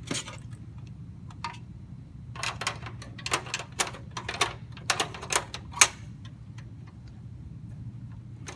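Sharp plastic and metal clicks and knocks of a CD drive bracket being fitted into a desktop computer case. There is a lone click at the start, then a quick irregular run of about a dozen clicks between about two and a half and six seconds in.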